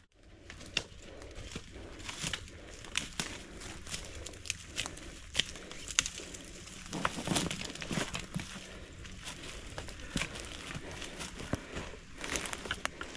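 Hikers' footsteps crunching on dry leaf litter, twigs and stones, with irregular sharp clicks and crackles from boots and trekking poles.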